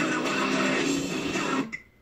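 Background song with guitar, which cuts off suddenly about three-quarters of the way through, leaving near silence.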